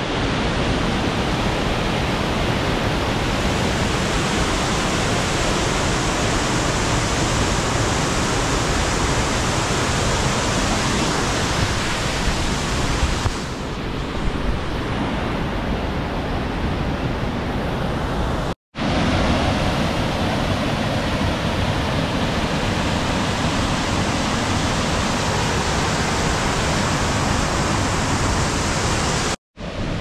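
Waterfall rushing: a steady, even noise of heavy falling water that drops out briefly twice, about 19 and 29 seconds in.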